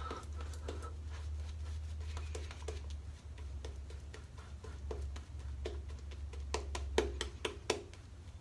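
Two-band badger shaving brush working thick lather over stubble on the face: a run of soft, wet clicks and crackles, denser in the second half with the loudest about seven seconds in, over a steady low hum.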